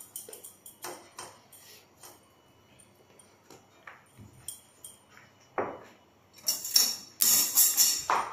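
Kitchen clatter around a paratha cooking on an iron tawa on a gas stove: scattered light clicks and high tinkling, then a louder scraping, rustling stretch of about two seconds near the end.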